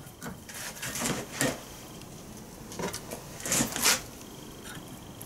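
Small metal parts and hand tools clinking and tapping at a steel bench vise as a thin metal bracket is handled and set in the jaws: a handful of short, light knocks and clicks spread irregularly over a few seconds.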